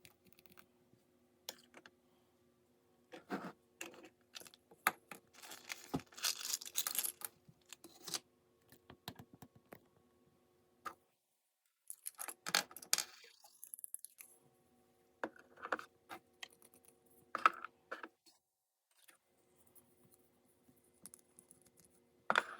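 Unboxing handling sounds: scattered clicks and taps of plastic pieces being handled, with packaging crinkling and tearing about five to eight seconds in and again around twelve seconds in.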